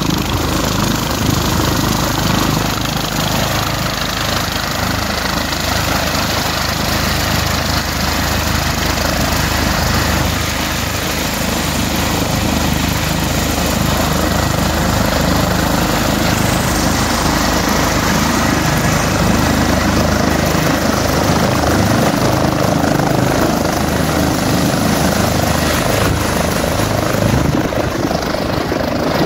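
Trauma helicopter's turbines and rotor running steadily on the ground, a little louder in the second half as it lifts off near the end.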